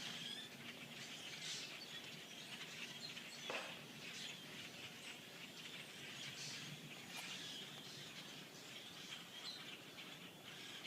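A large flock of small migrating birds chattering in a tree, a faint, dense stream of many overlapping high chirps and calls.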